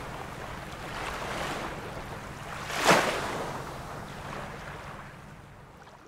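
Sea waves washing in on the shore in a strong wind, one wave breaking loudly about three seconds in. The sound fades out near the end.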